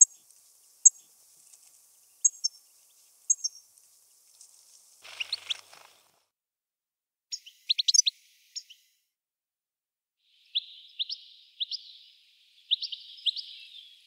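European goldfinch singing: a few short, high notes spaced about a second apart, then brief bursts of twittering, and a run of rapid twittering from about ten seconds in.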